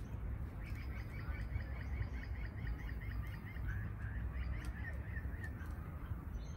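A bird calling a fast run of short, evenly repeated chirps that stops shortly before the end, over a steady low background rumble.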